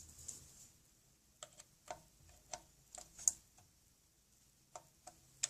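Faint, scattered light clicks and taps, about eight of them starting over a second in, from a screwdriver and hands working against the plastic and metal parts inside a small desktop PC's case.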